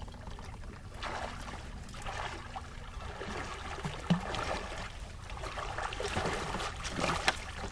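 Water splashing and trickling at the side of a small fishing boat as a hooked catfish is brought in, with a few scattered knocks against the boat.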